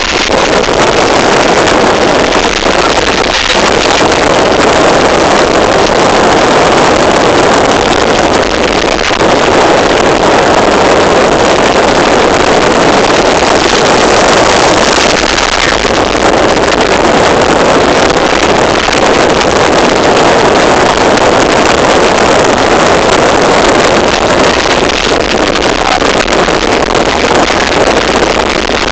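Loud, steady rushing noise of rain and wind hitting a moving car in a storm.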